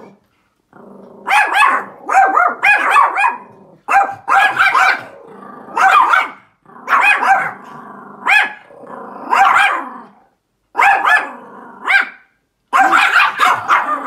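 Pomeranian barking in quick volleys of several barks at a time with short pauses between, alert barking at another dog seen outside the window.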